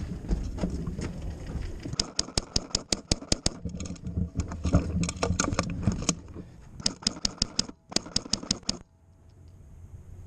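Airsoft gun firing three quick bursts of sharp snapping shots, several a second, after about two seconds of rumbling movement and handling noise.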